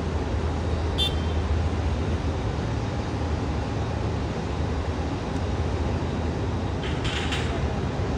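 Jet engines of a twin-engine airliner running at taxi power: a steady low rumble, with a short hiss about seven seconds in.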